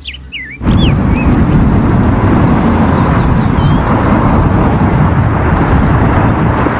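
Road traffic noise as a double-decker bus drives past: a loud, steady rush of engine and tyre noise that starts suddenly about half a second in.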